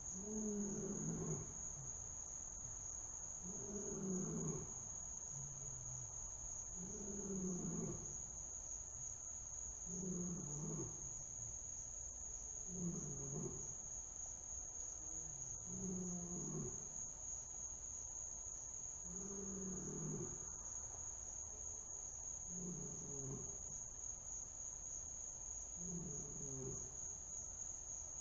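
Big cat snoring: a low sound about a second long, repeating about every three seconds. Crickets chirr steadily throughout.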